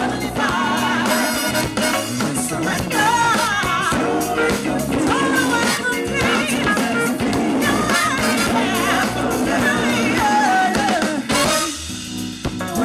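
Live band playing, with singing over drums and a full band, heard distorted because it was recorded right by the PA speakers. The singing pauses briefly near the end.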